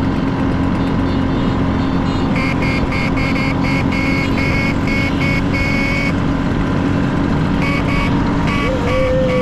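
Vespa scooter engines running steadily on a group ride. Over them come quick runs of short, high-pitched beeps, like horn toots: one starting about two seconds in, another near the end.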